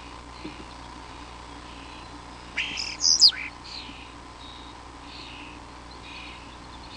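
A small animal's high chirping calls: a quick cluster of loud, sharp chirps sweeping up and down in pitch about two and a half to three and a half seconds in, with fainter short chirps every second or so around them.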